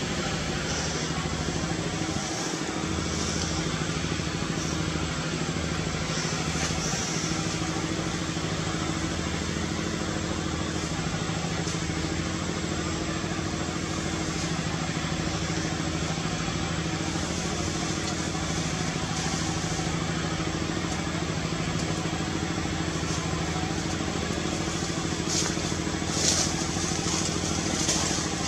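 A steady low mechanical hum, like an engine idling, over a constant even noise, with a few brief high-pitched sounds near the end.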